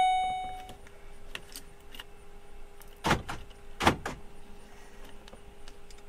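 An in-car electronic chime fading out in the first second, then a faint steady hum with two sharp clicks about a second apart near the middle.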